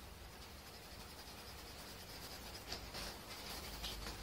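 Coloured pencil scratching faintly on drawing paper in shading strokes, with a few short, sharper strokes in the second half.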